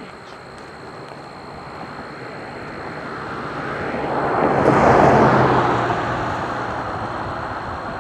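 A train passing close by. Its noise builds to a peak about five seconds in, with a low engine hum at the loudest point, then settles into a steady rumble.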